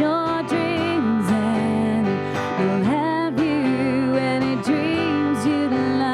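A female vocal duo sings a song over strummed acoustic guitar. The melody moves in long held notes with vibrato.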